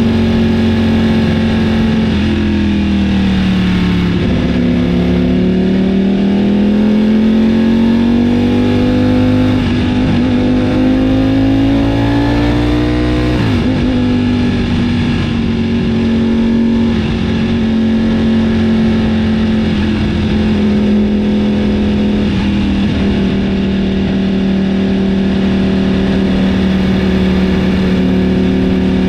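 Ducati Panigale V4's Desmosedici Stradale V4 engine running. Its pitch dips, climbs slowly for several seconds, drops sharply about 13 seconds in, then holds nearly steady.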